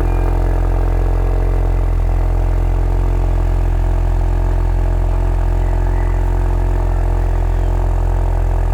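Alfa Romeo 2.0-litre turbocharged four-cylinder idling steadily shortly after a cold start, through a full downpipe and Remus aftermarket exhaust. The engine has a freshly fixed turbo and tightened exhaust bolts.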